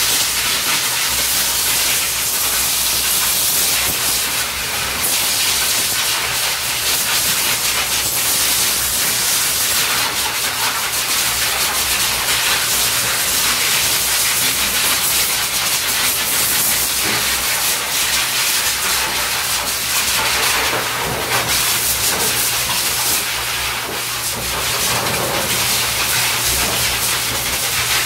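Pet grooming dryer blowing air through its hose nozzle onto an American bully puppy's coat: a steady, loud rushing hiss with a low hum underneath.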